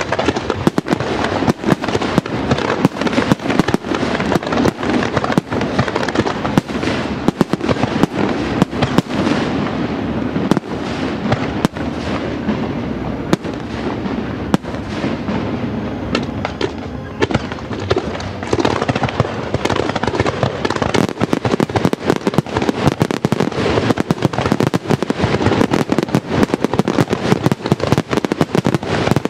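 Display fireworks going off in a dense, rapid barrage: aerial shell bursts and crackling reports overlapping, many bangs a second without a break.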